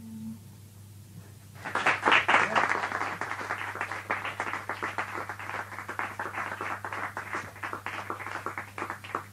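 The last held note of the song ends, and about a second and a half later an audience applauds, loudest at the start and thinning out before it stops near the end. A steady low hum runs underneath.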